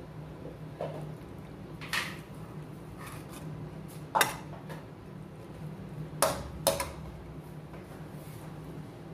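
Metal slotted spoon clinking and scraping against a stainless steel pan while food is served out of it: four sharp clinks, the loudest a little past four seconds and a close pair around six to seven seconds. A steady low hum runs underneath.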